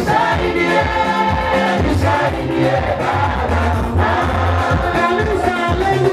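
Live gospel song: a group of singers in chorus over instrumental accompaniment with a bass line and a steady beat.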